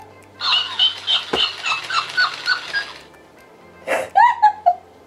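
Talking hamster mimicry toy playing back laughter in a sped-up, squeaky, high-pitched voice, in two bursts.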